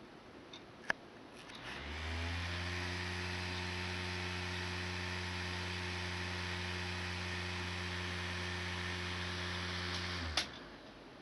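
A computer with a newly replaced CPU fan is switched on with a click and spins up in about a second to a steady drone. The drone is a loud low hum with a hiss over it, the abnormal noise heard after the fan swap. It is switched off with a click near the end and quickly winds down.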